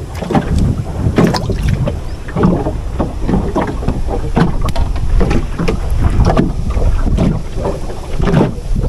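Wind buffeting the microphone in gusts, with many short rustles and light knocks from hands handling fishing line and a bamboo rod at the boat's side.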